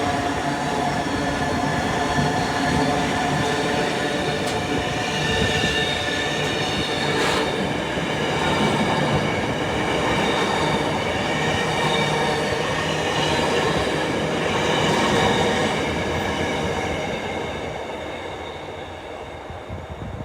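A Direct Rail Services (DRS) train passing through the station: a steady running noise with several steady whining tones over it, dying away over the last few seconds.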